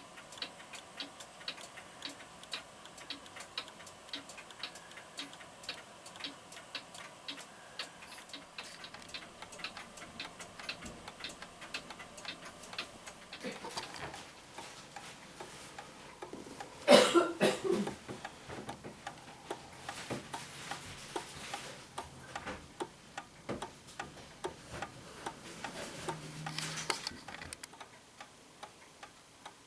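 F. Kroeber mantel clock movement ticking steadily after repair, with a brief louder clatter a little past halfway.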